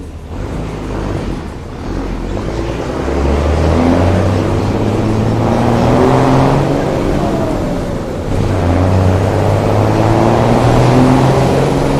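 Vehicle engine rumbling loudly as it accelerates hard. Its pitch climbs steadily, then drops back briefly at a gear change about eight seconds in before it climbs again.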